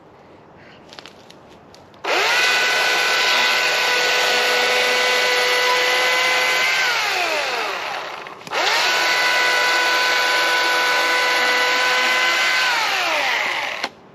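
Chainsaw running at full speed in two long runs. Each starts suddenly, holds a steady high whine, then winds down with a falling pitch as the chain slows, and the saw stops almost fully between the runs.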